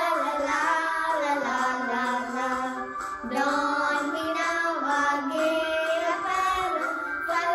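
A woman and two children singing a Christmas carol together, with a short break between phrases about three seconds in.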